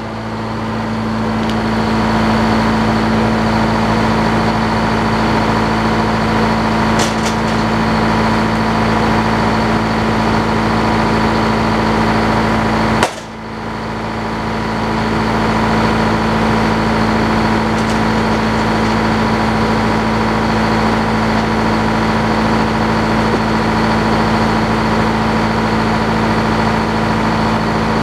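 Old belt-driven circular sawmill running steadily, its power unit and spinning blade making a constant low hum. The sound drops out for a moment about halfway through, then comes straight back.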